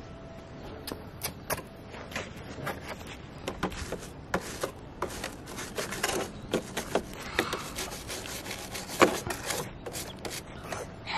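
Bristle brush scrubbing a plastic Bruder toy street sweeper truck: irregular scratchy strokes with small clicks, and one sharper knock about nine seconds in.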